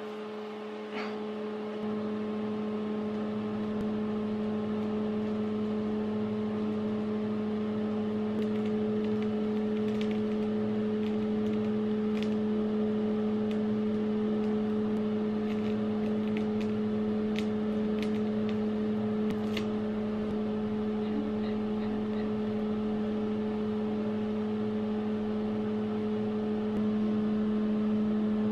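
A small motor hums steadily at one fixed pitch, with a few faint sharp crackles from about eight to twenty seconds in as clear plastic film is peeled off skin.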